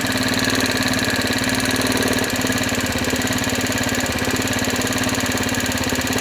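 Honda Dio AF56 scooter's 50 cc four-stroke single-cylinder engine idling steadily with a rapid, even valve tapping. The exhaust valve clearance is too large because the thickest shim on hand was too thin, which the owner puts down to apparent wear on the rocker arm or camshaft.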